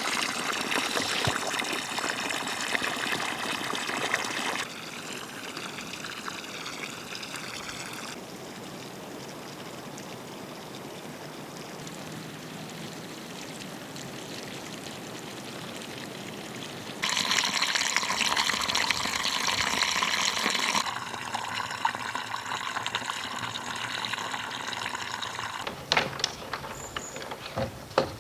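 Water being poured and splashed into the fish's water to aerate it, a steady rushing pour that grows weaker and stronger in several spells and is loudest in the middle. A few sharp knocks come near the end.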